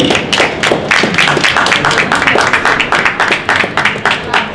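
Audience applauding, a dense run of hand-clapping.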